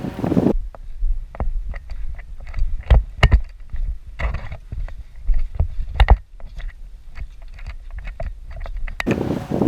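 Irregular sharp clicks and knocks, with heavier thumps about three seconds in, just after, and about six seconds in.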